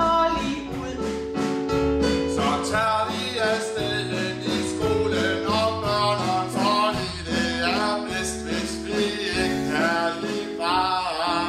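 Song from a stage revue: a voice singing in Danish over backing music with a bass line and guitar.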